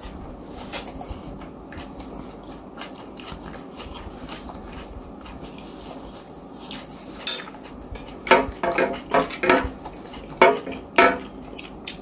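Eating at the table: a few soft scattered clicks, then from about eight seconds in a run of louder clinks and clatter of a metal spoon against a ceramic plate.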